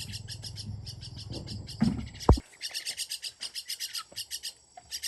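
Rapid high-pitched bird chirping, many short chirps a second in a steady stream. About two seconds in there is a thud followed by a sharp loud knock, after which a low background rumble stops.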